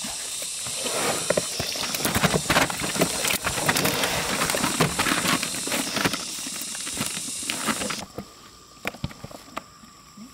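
Water rushing and splashing, with many irregular sharp slaps over it. It cuts off suddenly about eight seconds in.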